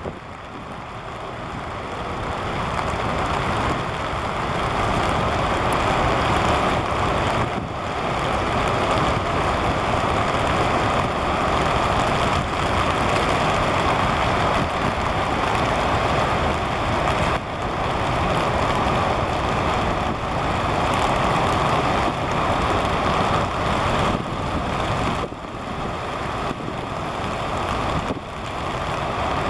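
Strong wind gusting over the microphone with rain, a steady loud rushing noise that builds over the first few seconds and eases briefly a few times.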